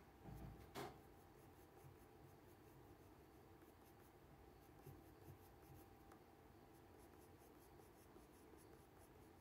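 Faint scratching of a black colored pencil drawing short strokes of dog fur on paper, with a soft tap about a second in.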